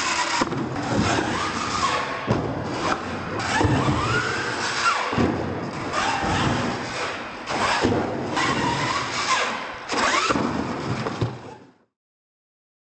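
RC monster truck's electric motor whining, its pitch rising and falling again and again as the throttle is worked, with tire noise and occasional knocks from landings on the concrete floor and ramps. The sound fades out near the end.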